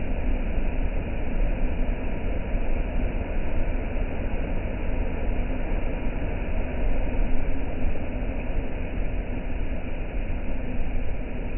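Steady, loud rushing noise of a rough, heavy sea breaking as surf, with low rumble from wind on the microphone.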